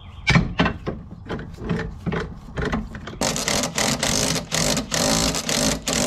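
A cordless power tool on a bolt at the gearbox mounting bracket, run in a quick series of short trigger bursts starting about halfway through. Before that come a few scattered clicks and knocks of metal parts being handled.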